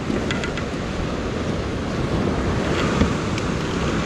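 Ocean surf washing and breaking over the rocks below, with wind buffeting the microphone. A few light clicks about half a second in and a dull thump near three seconds.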